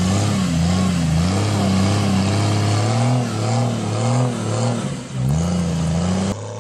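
Jeep Cherokee XJ's engine revving up and down in repeated pulses while its mud tyres spin in deep mud, the vehicle stuck. The sound drops off suddenly near the end.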